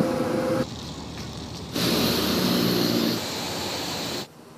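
Steady outdoor background noise with a low hum and wind, changing abruptly several times as short clips are cut together.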